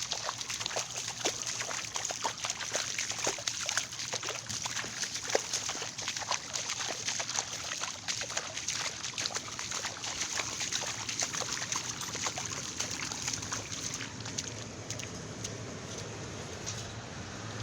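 Shallow floodwater sloshing and splashing, with many small irregular splashes.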